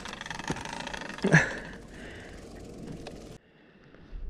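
Steady rushing noise of wind and a mountain bike being handled on loose rocky ground, with faint rattles and clicks and a short grunt a little over a second in. It cuts off abruptly about three seconds in.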